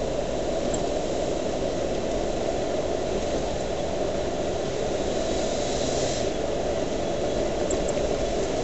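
Steady engine and road noise of a Land Rover Discovery V8 driving along a tarmac lane, heard from inside the cabin. A lighter hiss in the upper range drops away about six seconds in.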